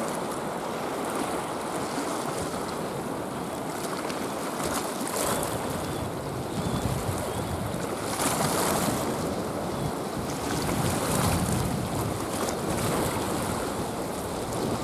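Small waves washing and lapping along a rocky shore, with wind on the microphone; the wash swells louder a few times.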